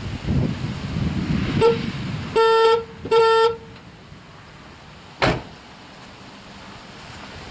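Horn of a 1995 GMC Yukon two-door, a brief tap followed by two short honks of about half a second each. A single thump follows a couple of seconds later.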